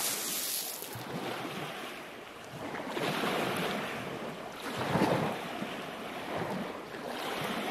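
Surf washing on a pebble beach with wind on the microphone, swelling about three seconds in and strongest about five seconds in. At the start, a hand rakes through the loose beach pebbles.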